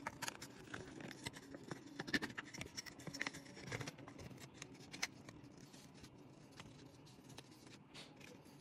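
Foil lid being peeled off a plastic dessert cup: a run of small crinkles and crackles, busiest for the first five seconds or so, then sparser and softer.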